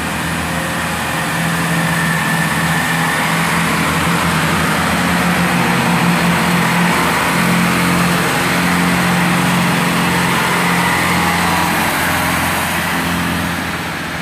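Class 166 Networker Turbo diesel multiple unit pulling away, its underfloor diesel engines running with a steady drone. The sound swells as the cars pass and eases as the train draws away near the end.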